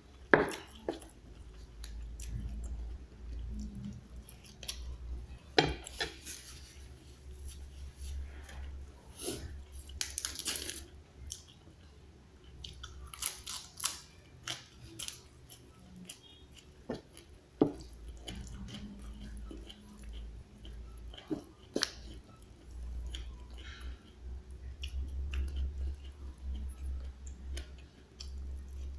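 A person chewing and eating close to the microphone: crunching raw papaya leaves and mouthfuls of rice, with smacking mouth sounds and a few sharp clicks from the spoon.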